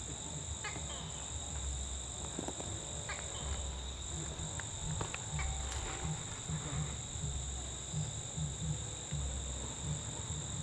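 Insects chirring in a steady, unbroken drone at two high pitches, over a low, uneven rumble and a few faint ticks.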